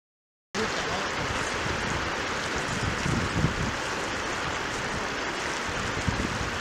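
Shallow river water rushing steadily over stones, with low wind rumble on the microphone; it starts abruptly about half a second in.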